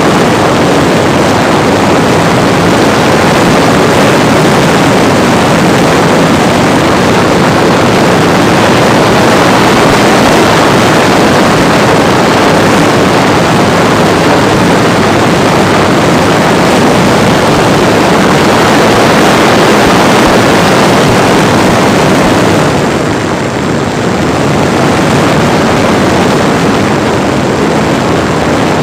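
Loud, steady rush of air mixed with the drone of a Parkzone T-28 Trojan RC plane's brushless electric motor and propeller in flight, picked up by a camera riding in the plane's cockpit. The noise eases briefly about 23 seconds in, then comes back.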